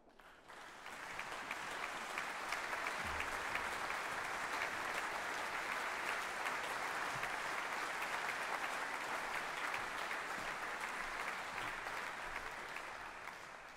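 Audience and orchestra members applauding, a dense steady clapping that builds over the first second and dies away near the end.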